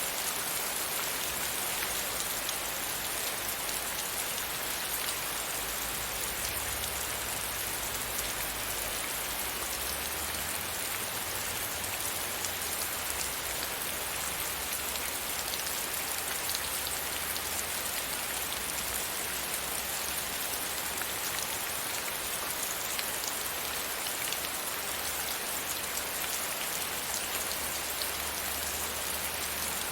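Steady rain pattering against a window pane, a dense even hiss of many small drops.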